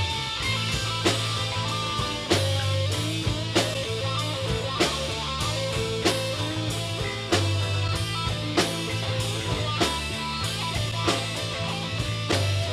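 Intro music: rock with guitar, bass and drums, a heavy drum hit falling about every second and a quarter.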